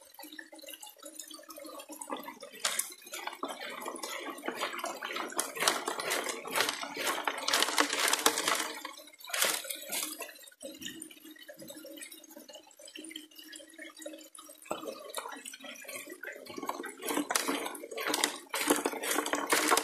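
Water gushing into the steel hopper of a 6-inch Gold Rat highbanker and sluicing through it, with gravel and stones rattling against the metal as creek material is fed in by hand. The rattling is heaviest in the middle and near the end.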